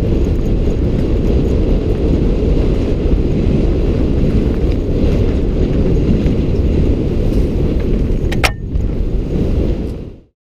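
Wind rushing over a helmet camera's microphone, with tyre rumble from a mountain bike riding fast down a gravel forest singletrack. A single sharp click near the end, then the noise fades out.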